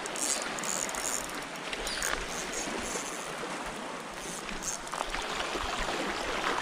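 Steady rush of seawater lapping and trickling along the shore, with a few short, high hissy bits.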